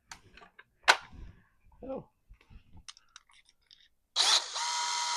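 Small clicks and knocks of tools being handled, with one sharp knock about a second in; near the end a power drill starts and spins at a steady speed with an even whine.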